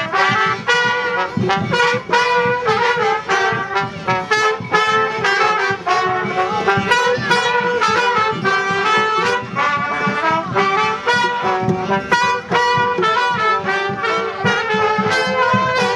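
Marching street band of trumpets, saxophone and other brass playing a lively tune live over a steady beat.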